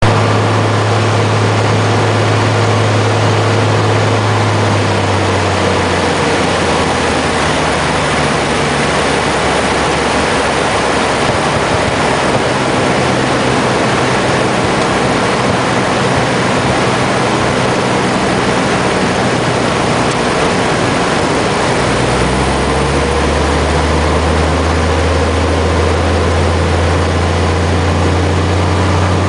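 Steady drone of a light plane's piston engine and propeller, heard from aboard the aircraft in flight, with a rushing wash of air and engine noise. The low hum drops back about five seconds in and swells up again about 22 seconds in.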